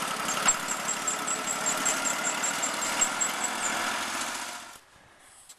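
Portable bandsaw sawmill's engine running steadily, stopping about four and a half seconds in.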